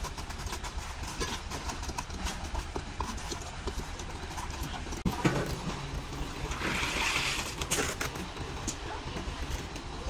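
Concrete being tipped from buckets into beam formwork, with scattered knocks and clinks of buckets and tools, a sharp knock about five seconds in and a rushing pour around seven seconds in, over a steady low rumble.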